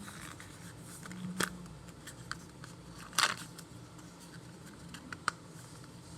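A small cardboard toy box being opened by hand: scattered clicks, snips and rustles of packaging, with a louder rustling scrape about three seconds in.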